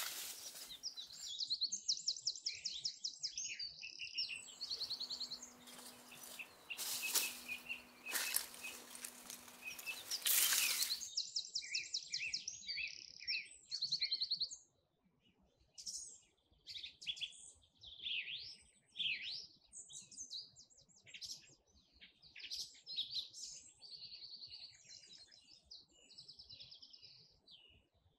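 Songbirds singing, a steady run of quick chirps and rapid trills. For the first half this is mixed with loud rustling noise, which stops about 11 seconds in, leaving only the birds.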